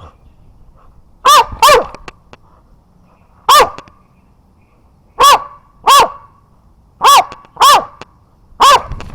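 A dog barking: eight short, loud barks, mostly in pairs, with pauses between.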